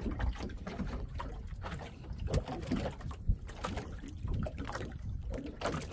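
Sound aboard a small open fishing boat at sea: a low wind rumble and water sloshing, with scattered short knocks and splashes.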